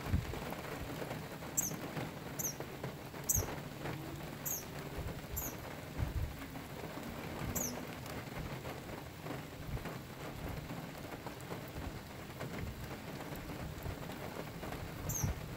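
Steady rain falling on the ground and water. Over it a small bird gives short, high, falling chirps, about six in the first eight seconds and one more near the end.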